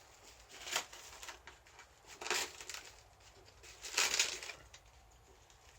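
Three short rustling noises, about a second and a half apart, the last the loudest.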